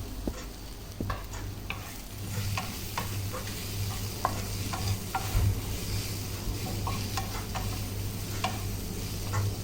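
A spoon stirring fried onions with salt and turmeric in a pan of oil, the onions sizzling softly, with irregular clicks and scrapes of the spoon against the pan over a steady low hum.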